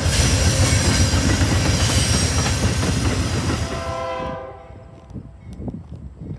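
Amtrak GE Genesis P42DC passenger locomotives passing close at speed: a loud, steady rush of wheel and rail noise over a deep engine rumble. About four seconds in it fades away as a multi-note locomotive horn chord sounds briefly, leaving faint outdoor noise with a few low thumps.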